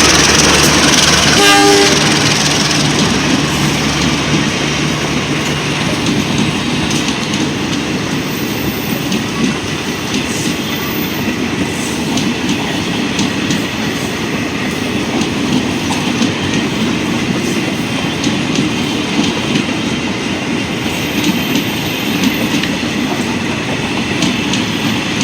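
A passenger train passing close by. Its diesel locomotive's engine hums for the first couple of seconds, with a short horn note about a second and a half in. Then the carriages' wheels run past, clacking steadily over the rail joints.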